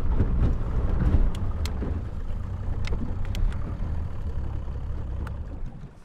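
Small motorboat's engine running over choppy water, a steady low rumble that eases off near the end, with a few sharp knocks.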